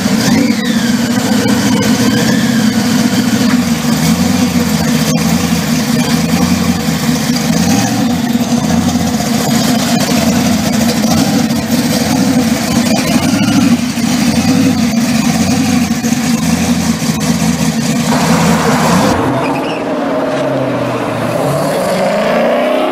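Supercharged 572 cubic-inch Chevrolet big-block V8 in a 1969 Camaro SS idling with an uneven, pulsing beat. Its revs fall back from a throttle blip just after the start, and it revs up again near the end.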